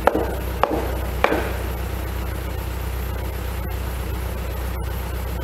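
Three sharp knocks about half a second apart, hammer blows driving a timber tie beam into its joint on a post, over a steady low rumble.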